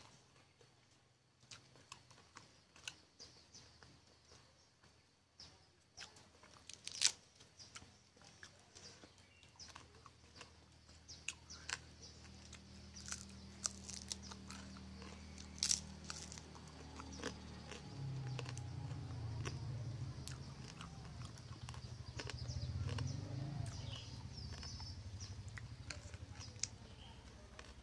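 Close-up eating sounds: chewing and crunching of rice and chilli-fried fish eaten by hand, with sharp clicks and small taps of fingers on the plate. About halfway in, a low steady drone sets in and swells to become the loudest sound.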